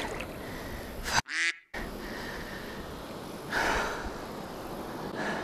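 River water swirling and lapping against the kayak as a large flathead catfish is released, with a short splash about three and a half seconds in as the fish swims down. A brief pitched sound breaks in about a second and a half in.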